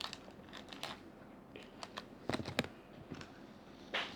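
Scattered small clicks and taps of Play-Doh and plastic pieces being handled on a table, with a louder cluster of knocks a little past halfway and again near the end.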